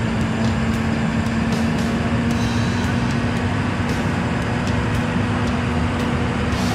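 A heavy farm vehicle's diesel engine running steadily at constant speed, a low rumble with a steady hum over it.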